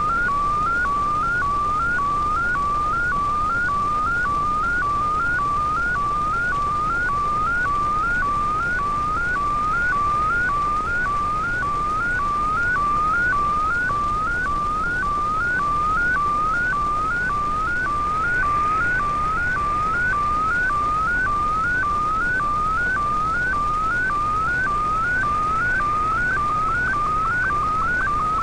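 Shortwave digital image signal in Fldigi's MFSK picture mode, received in AM on an Icom IC-R8600: a warbling tone around 1 to 1.5 kHz that repeats as a rising sweep nearly twice a second, over a bed of receiver hiss. It is a picture being sent line by line and decoded.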